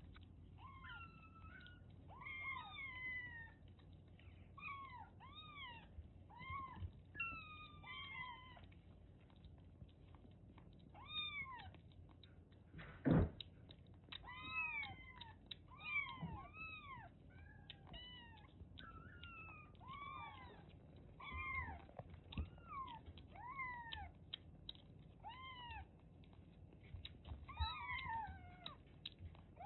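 Kittens mewing over and over, short high rising-and-falling mews coming in clusters, with a single sharp knock about 13 seconds in.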